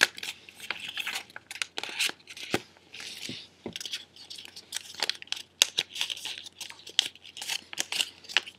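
Sheet of printer paper being folded and creased by hand: irregular crinkling and crackling with sharp clicks of the paper, on and off.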